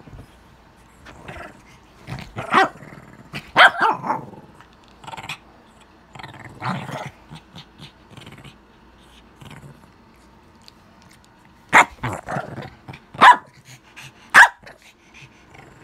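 Shih Tzu growling and giving short barks in separate bursts, with a loud cluster about three seconds in and three sharp barks near the end.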